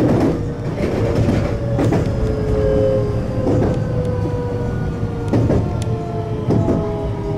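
IR Ishikawa Railway 521-series electric train slowing into a station: the electric motors' whine falls steadily in pitch over the rumble of the wheels on the rails, with a few sharp clicks from the track every second or two.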